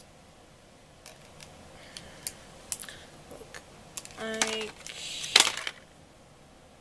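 Small plastic clicks and taps from handling a false-eyelash case, then a short squeak and a louder plastic scraping rustle about five seconds in as a strip lash is taken out of its tray.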